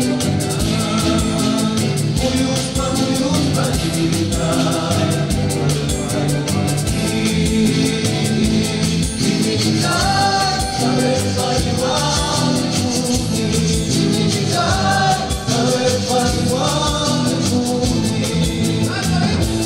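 Andean folk band playing and singing live: several voices singing together over strummed acoustic guitar and charango, to a steady beat.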